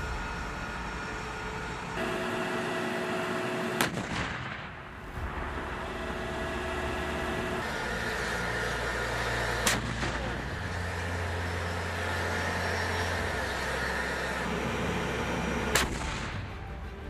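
Three sharp booms, cannon-like, about six seconds apart over dramatic background music with long held low notes that shift every few seconds.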